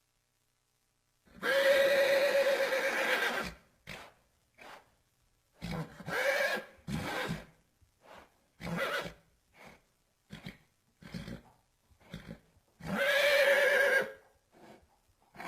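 A horse neighing: a long call about a second in, a run of shorter calls, then a second long neigh near the end.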